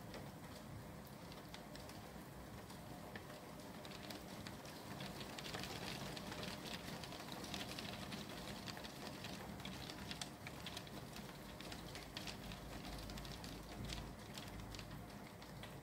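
Rain shower pattering against window glass and the surfaces outside, a dense scatter of fine ticks that grows busier around the middle.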